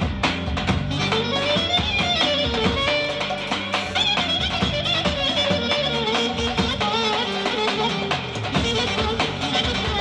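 Turkish Roman havası dance music: an ornamented, wavering melody line over a steady beat.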